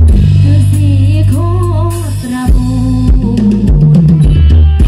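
Live Isan pong lang band playing folk dance music: a drum kit keeps the beat over a strong bass line. A wavering melody line comes in about a second in and fades after two seconds.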